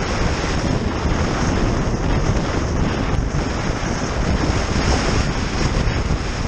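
Wind buffeting the microphone of a GoPro Hero Session mounted outside a car driving at road speed: a steady, heavy rush of noise, deepest at the low end.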